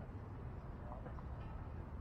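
Steady low rumble of wind and street noise on the microphone of a moving bicycle, with a few faint short high sounds about a second in.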